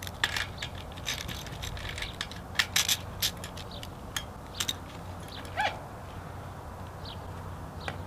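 Scattered sharp metal clicks and knocks as the U-bolt on a well casing is loosened and a hand pump's drop pipe is worked down through the well head.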